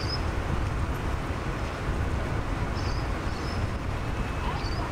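Tram running with a steady low rumble, a few short high chirps heard over it.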